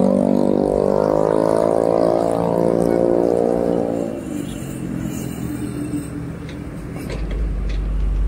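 A passing road vehicle's engine accelerates, its pitch rising, then holds steady for about four seconds before fading away. Near the end a deep low rumble builds as a heavy tanker truck approaches.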